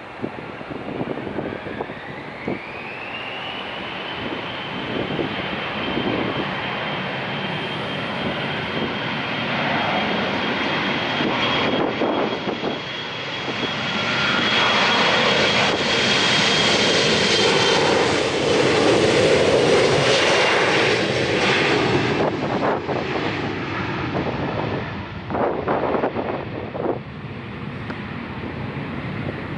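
Jet airliner's engines spooling up with a rising whine that settles into a steady high whine, growing louder as the plane passes and then fading away. Gusts of wind buffet the microphone.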